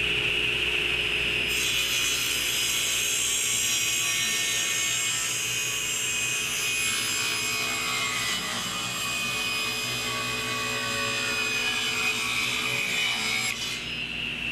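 Table saw running with a steady high whine, its blade cutting through a wooden plank fed on a sliding jig. The cut starts about a second and a half in and stops about a second before the end, leaving the blade spinning free.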